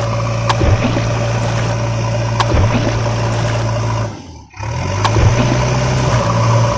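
Toy backhoe's motor running steadily, a low hum with a steady whine over it and a few sharp clicks. It cuts out for about half a second about four seconds in, then carries on.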